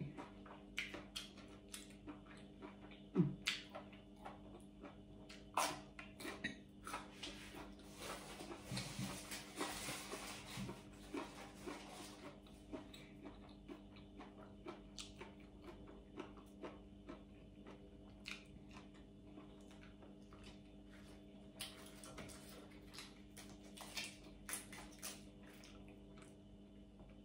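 A person biting and chewing crisp raw vegetables: irregular sharp crunches and wet chewing clicks, with a denser run of crunching a third of the way through. A faint steady hum sits underneath.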